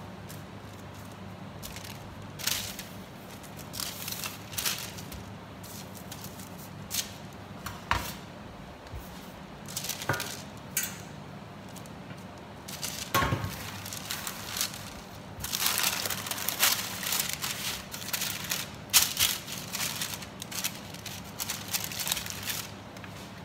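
Parchment baking paper rustling and crinkling as it is handled, in short scattered bursts at first and a longer, denser stretch near the end as the paper is dragged onto a tray. A single sharp knock about halfway through, from the metal baking tray being set down on the counter.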